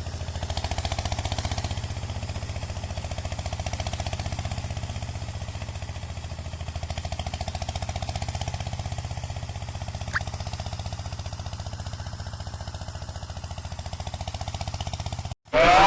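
Walk-behind tractor engine running steadily with a rapid, even pulse while working a rotary tiller. It cuts off suddenly near the end and electronic music begins.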